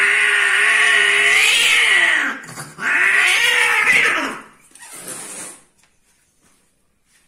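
Female cat caterwauling while being mated: two long, loud yowls of about two seconds each that waver in pitch, then a shorter, fainter one about five seconds in.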